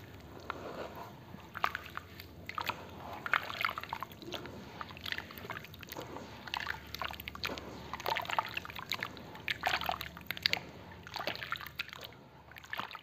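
Hands squishing and swirling a watery charcoal-sand slurry in a plastic basin: irregular wet squelches, slaps and sloshes, growing quieter near the end.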